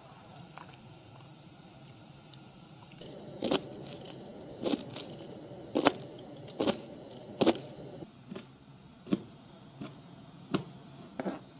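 Kitchen knife chopping green onions on a plastic cutting board, a sharp chop about once a second starting a few seconds in, over a faint steady background.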